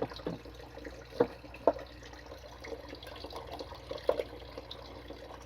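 Water trickling steadily in an aquaponics system's plumbing, with a few light knocks scattered through it.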